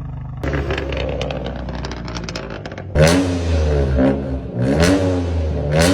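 Inline two-cylinder engine idling with a rapid ticking, then blipped three times, each rev climbing and dropping back, with the third near the end.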